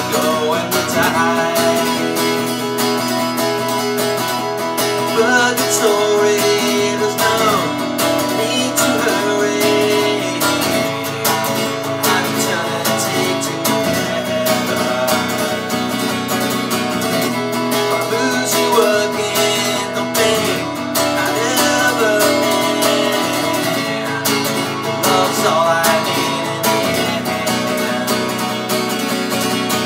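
Acoustic guitar strummed in a steady rhythm, with a man singing a song over it.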